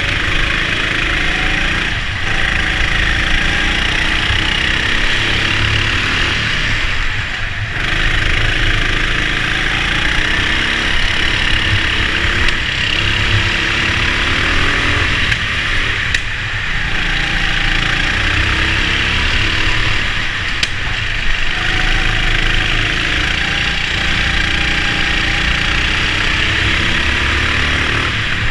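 Rental go-kart at racing speed, heard from on board: the motor's pitch rises and falls repeatedly through the corners over a heavy steady rumble, with brief dips in speed about seven and sixteen seconds in.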